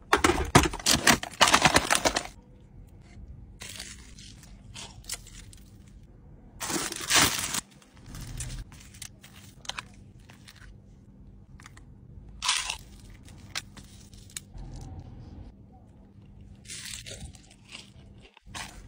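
Aluminium foil takeaway tray and its lid crinkling and tearing for about two seconds as it is opened, followed by shorter crinkles and crackles of foil and wrapping every few seconds as crispy fried chicken is handled and pulled apart.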